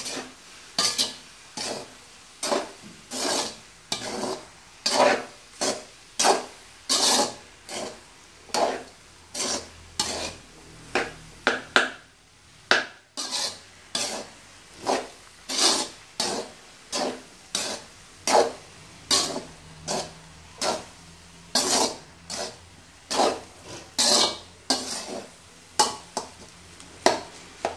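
Metal spoon scraping and knocking against an aluminium pot as cooked rice is stirred into tomato masala, in repeated strokes about one or two a second, with a short pause about halfway through. The rice is being mixed through and its lumps broken up for tomato rice.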